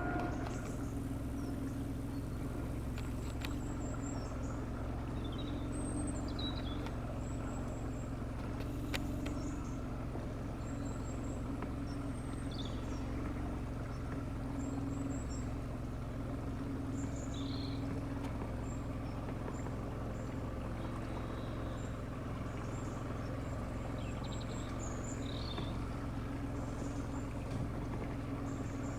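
Steady engine drone with short, high chirps now and then.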